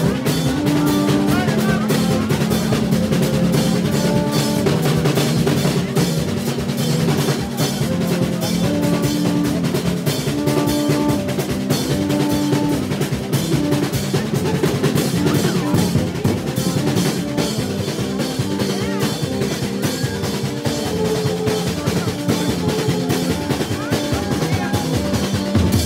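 Street percussion band playing loudly: snare drums, a hand drum and a bass drum with a cymbal beating a fast, dense rhythm, with held horn notes repeating a short tune over it.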